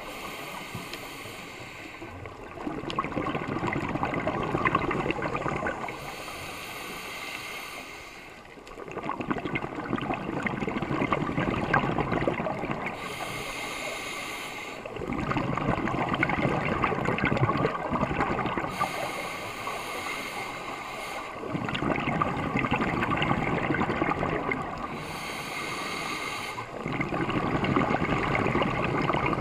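Scuba diver breathing through a regulator, recorded underwater. A hissing inhale alternates with a longer, louder bubbling exhale in a slow cycle of about one breath every six seconds, about five breaths in all.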